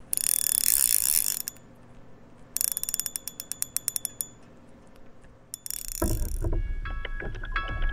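Fishing reel drag screaming in fast ratcheting bursts, once with a run of clicks that slows down as the line stops running out. Music starts about six seconds in.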